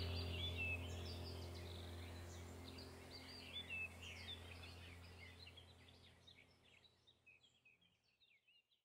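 Small songbirds chirping over a steady low hum, the whole fading out gradually to silence.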